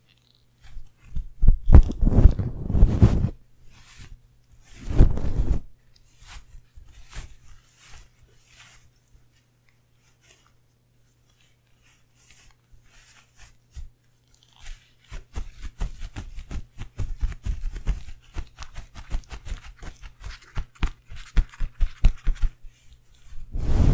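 A bunch of feathers brushed over a mesh microphone grille at close range: loud, crunchy swishes twice in the first five seconds, then, after a quiet spell, a long run of quick crackly scratching.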